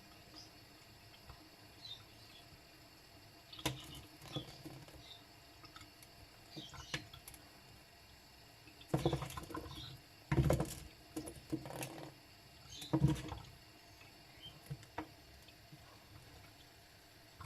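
Two-month-old lovebirds making small scratching, pecking and rustling sounds, with scattered faint high chirps. Louder bursts of rustling come around the middle and again a little later.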